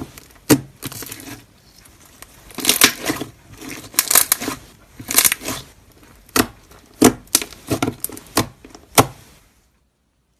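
Slime being squeezed and poked by hand: irregular sharp pops and clicks of trapped air, some in quick crackling clusters. The sounds stop shortly before the end.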